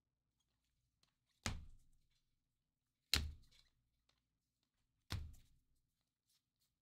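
Three dull thumps, each fading quickly, spaced about one and a half to two seconds apart, from hands handling a stack of baseball cards at a table.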